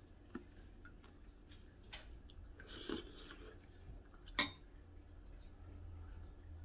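A metal spoon clinking a few times against a ceramic soup bowl, with soft chewing between; the sharpest clink comes about four and a half seconds in.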